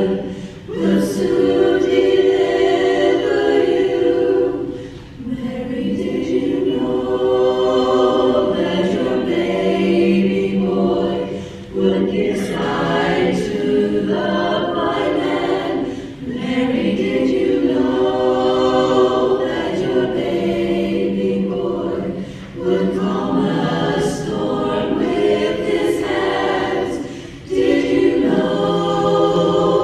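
Women's choir singing in held, sustained chords, the phrases broken by short breaths every five or six seconds.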